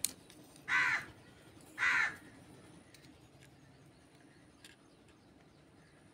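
A crow cawing twice, about a second in and again a second later. After that come a few faint clicks of plastic toy kitchen utensils being handled.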